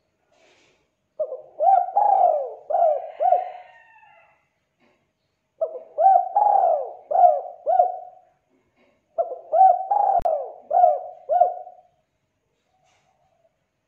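Spotted dove (tekukur) cooing: three song phrases a couple of seconds apart, each a run of four or five short coos.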